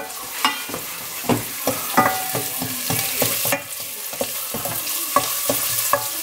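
Diced onions sizzling as they fry in a stainless steel pot, stirred with a wooden spoon that scrapes and knocks against the pot with many short clicks over a steady high hiss.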